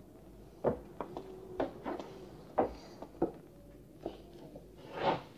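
A door being let open and footsteps on a hard floor: about six sharp knocks and steps, irregularly spaced, with a faint creak between them. Near the end there is a swelling rush of noise.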